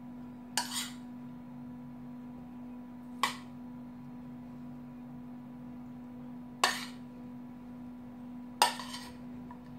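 Metal spoon clinking against dishes four times as chicken pieces are spooned onto the pizza, over a steady low hum.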